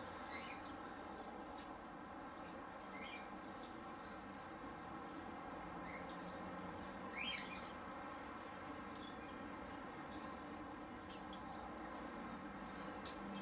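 Small parrots giving a few short, scattered chirps, the loudest about four seconds in, over a steady low background hum.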